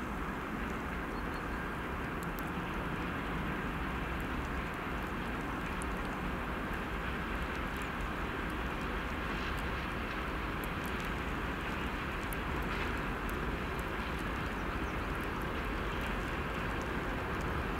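2TE116U twin-section diesel locomotive hauling a freight train on approach, its diesel engines droning steadily and slowly growing louder.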